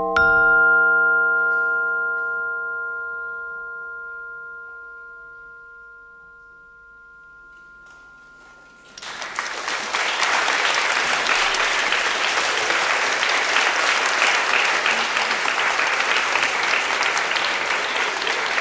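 The last, highest note of a rising vibraphone arpeggio is struck, and the held chord rings on, fading slowly. About nine seconds in, audience applause starts and stays steady.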